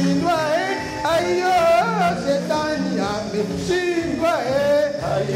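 Music with a male voice singing a bending melody over held low accompaniment notes.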